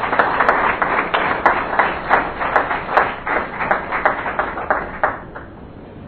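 A small audience applauding, with individual claps distinct, dying away about five seconds in.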